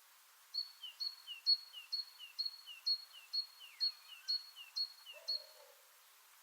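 Birdsong: a bird repeats a two-note call, a short high note and a downward-slurred lower one, about twice a second and stops about five seconds in. A sliding call and a brief lower call join in between, over faint outdoor background hiss.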